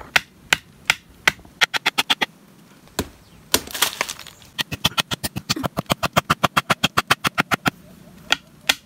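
Sharp wooden knocks as forked wooden stakes are pounded into the ground with a wooden club, with a fast run of about eight quick chops a second in the middle as a blade shaves a point on a stick.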